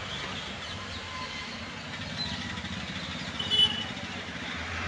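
Steady road traffic noise from vehicles on a highway, with a low engine hum. About three and a half seconds in comes a short high-pitched sound, the loudest moment.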